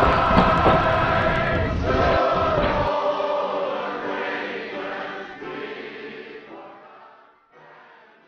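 Many voices singing together like a choir, over a noisy low rumble that stops about three seconds in; the singing then fades slowly away.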